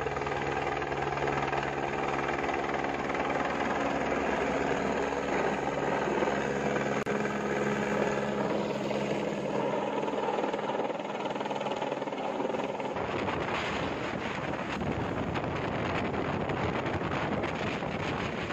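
Rescue helicopter hovering overhead, its rotor and turbine running steadily. About 13 seconds in the steady low tones give way to a rougher rushing noise with rapid chop, as the helicopter is right overhead.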